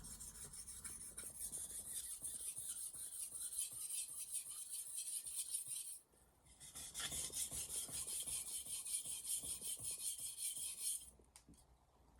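A Misono 210 mm Japanese knife blade being sharpened on a whetstone: a rasping scrape in quick back-and-forth strokes. The strokes pause briefly about halfway, resume, and stop near the end.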